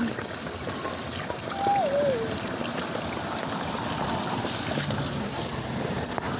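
Steady rain with water running and trickling. About two seconds in, a short wavering squeal falls in pitch.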